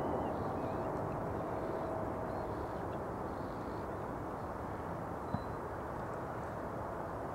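Boeing 777-200ER's jet engines on final approach, a steady rumble that eases slightly as the airliner flares low over the runway.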